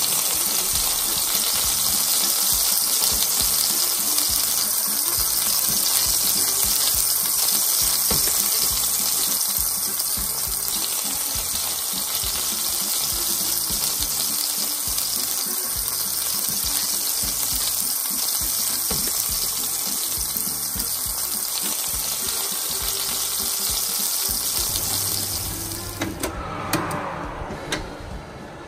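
Sliced zucchini, eggplant and tomato frying in oil in a pan: a steady, even sizzle, with background music under it. The sizzle stops near the end.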